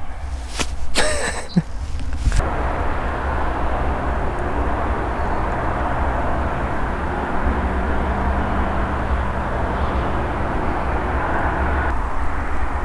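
Wind buffeting the microphone: a steady rushing noise with a heavy low rumble. Two brief sounds come about a second in, before the wind noise takes over.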